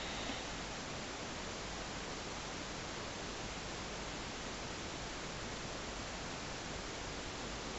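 Steady hiss of a camera's microphone and room noise in a quiet bedroom, with a faint brief rustle right at the start.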